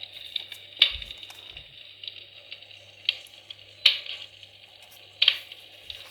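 Fireplace fire crackling steadily, with four sharp pops.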